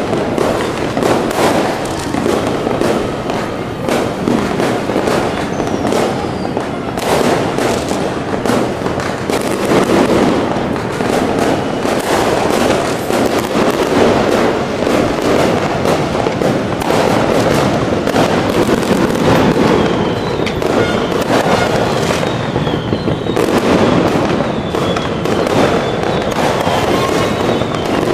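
Fireworks going off without pause, a dense run of bangs and crackles with a few thin whistles.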